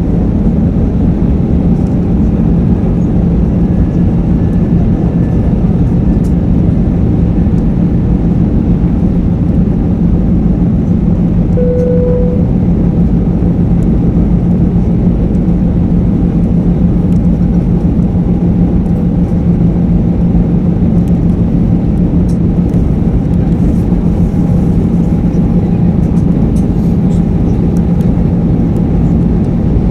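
Airbus A320 cabin noise in flight: a loud, steady rush of engine and airflow noise with a constant low hum. A short, faint tone sounds once about twelve seconds in.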